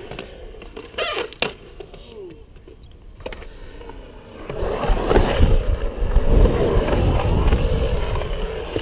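Skateboard wheels rolling on the concrete of a skatepark bowl, with two sharp clacks about a second in. The rolling rumble grows louder about halfway through.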